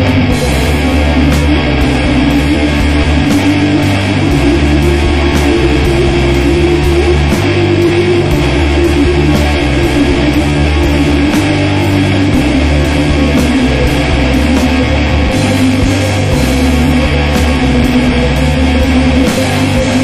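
Rock music with electric guitar and a steady driving beat, the bass line moving in steps.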